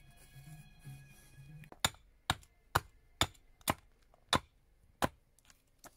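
An axe chopping into a sycamore handle blank held upright on a wooden stump: about seven sharp strikes, roughly half a second apart, spacing out slightly toward the end. Faint music plays in the first second or so.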